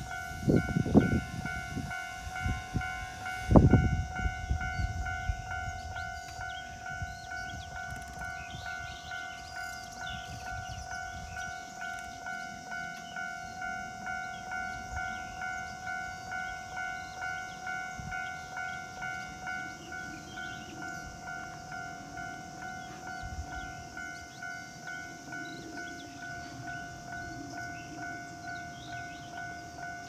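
Japanese level-crossing electronic warning bell ringing its steady, evenly repeating 'kan-kan' tone, switching on as the crossing's red lights begin to flash. A loud low thump comes about three and a half seconds in.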